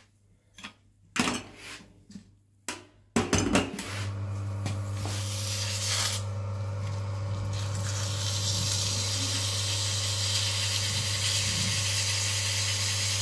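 A few handling clicks, then about three seconds in the electric motor of a bench oil friction tester switches on and runs with a steady hum. A hiss of rubbing on the spinning roller builds over the hum from about five seconds in as the machine is cleaned.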